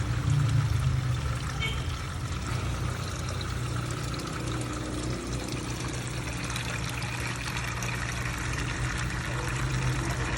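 Water pouring and trickling steadily from the pond's filtration system back into the water.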